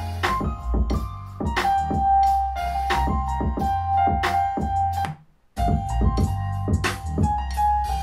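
A music track with struck keyboard notes over a deep bass, played at 50% volume through a JBL Xtreme 2 portable Bluetooth speaker and recorded binaurally. About five seconds in it cuts out for a moment, and the same track resumes through a Sonos Move speaker.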